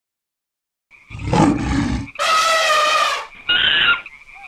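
Outro sound-effect sting: three loud animal-like blasts in quick succession, the first deep and heavy, the second a longer pitched cry, the third short. A faint steady high tone runs underneath from about a second in.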